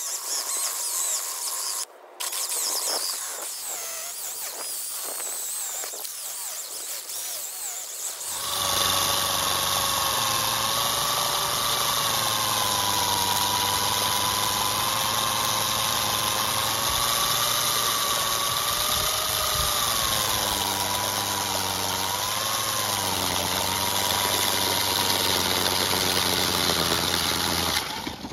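Handheld electric diamond core drill boring a water-fed core bit through a concrete curb. The motor runs with a whine that wavers slightly under load; it is lighter at first, then louder and steady from about a third of the way in, and cuts off suddenly near the end.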